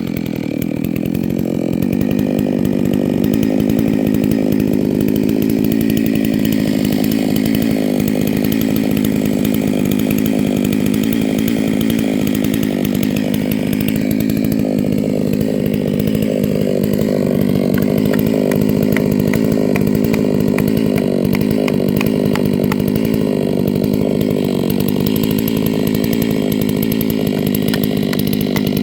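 Two-stroke chainsaw running at steady high revs, cutting into a bald cypress trunk.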